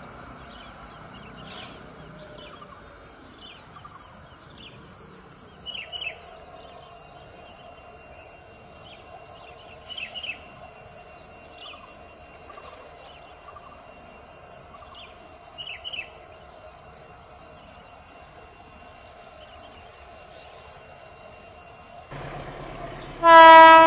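Insects buzzing steadily, with a bird giving short chirps three times, about 6, 10 and 16 seconds in. Just before the end a diesel locomotive horn blasts loudly.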